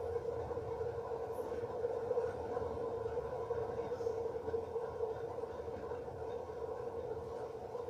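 A steady, even hum on one held tone with fainter overtones above it, unchanging throughout.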